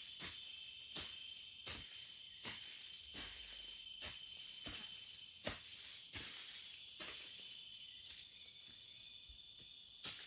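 Hand hoe chopping into soil and weeds in a steady rhythm, a strike about every three-quarters of a second, pausing briefly near the end. A steady high drone of insects runs behind the strikes.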